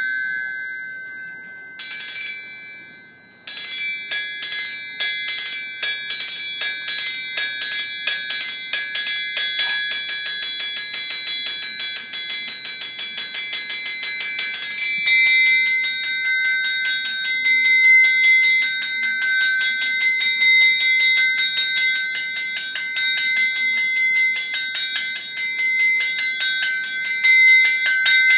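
Two hammers struck in a fast rhythm on a blacksmith's anvil, each blow ringing: the left hand plays the master's hammer and the right the striker's, as when a master smith and striker work together. Two single ringing strikes open it, then from about three seconds in comes an unbroken run of rapid strikes, with the ringing pitches changing about halfway through.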